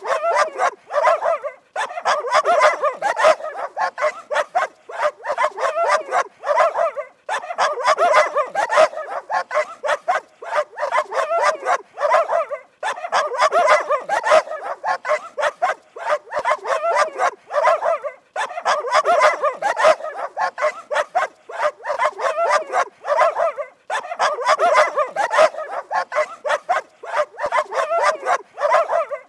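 A dog barking rapidly and high-pitched, in runs of several seconds broken by short pauses.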